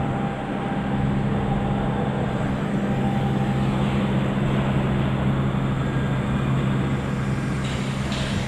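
Aircraft engine droning steadily overhead, a low, even hum.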